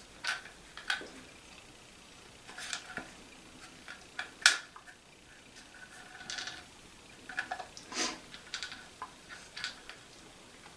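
Hands handling a new plastic toilet fill valve and its parts: scattered light clicks and rustles, with one sharper click about four and a half seconds in.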